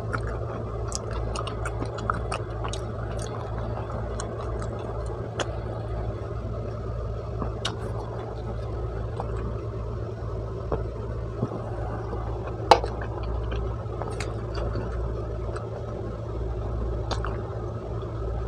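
Close-miked eating sounds: soft chewing and small mouth clicks over a steady low hum, with drinking from a soda can around the middle and one sharper click a little after.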